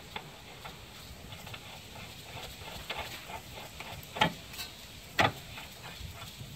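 Faint metallic clicks and taps as a nut is handled and threaded by hand onto a new stabilizer link stud, with two sharper clicks about four and five seconds in.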